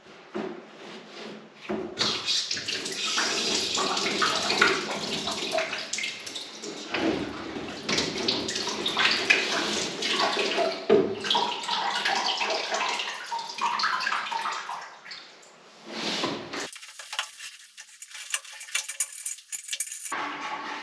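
Water running through a hose connected to a valve on the heating pipework, with knocks and clatter of the fittings being handled; in the last few seconds it settles into a steadier hiss.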